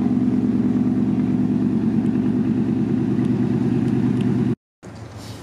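Ford F-150's V8 idling steadily shortly after a cold start, loud inside a garage. It cuts off suddenly about four and a half seconds in, leaving quieter room sound.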